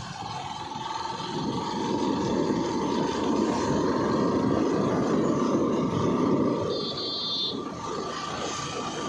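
A vehicle running steadily on the move, a rumbling noise with a thin steady whine over it.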